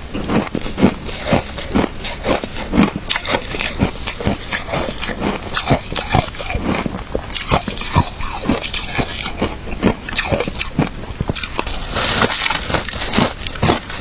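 Close-up chewing of crunchy shaved ice, a steady run of crisp crunches several times a second.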